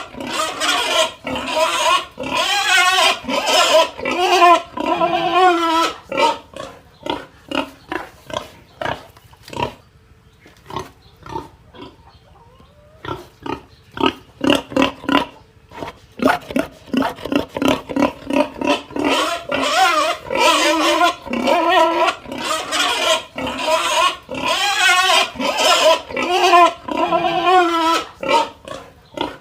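Pig crying out in long, wavering squeals, with short grunts coming about once or twice a second between them. The squeals come in two bouts, in the first few seconds and again from about 19 seconds, with a quieter spell of only faint grunts around 10 to 13 seconds.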